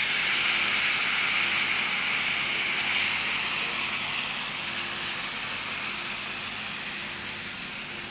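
Creamy mushroom sauce poured onto a hot cast-iron sizzler plate, hissing and sizzling as it hits the metal. The hiss is strongest at the start and slowly dies down as the plate cools under the sauce.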